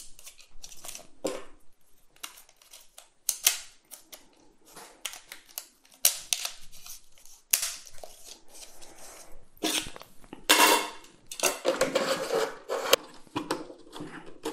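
Plastic hard-disk tray and its snap-on side rails being clipped back onto a 3.5-inch drive and handled: a run of sharp clicks and snaps, with a denser stretch of scraping and knocking about two-thirds of the way through.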